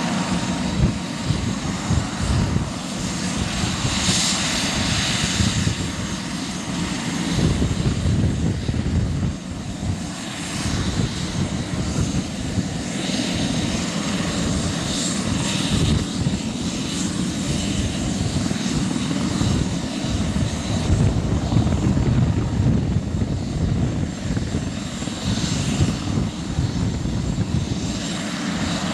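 Airbus H145 helicopter running on the ground, its twin turboshaft engines giving a steady whine while the main rotor turns with an uneven low whooshing pulse.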